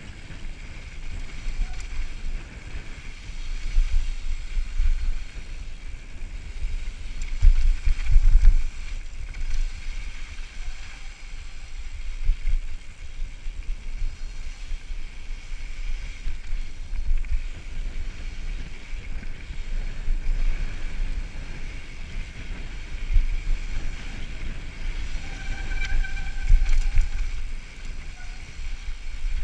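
Wind buffeting the microphone of a mountain biker's action camera during a fast descent on dirt singletrack, in uneven gusts, with the bike's tyres and frame rattling over the trail. A brief high-pitched squeal near the end.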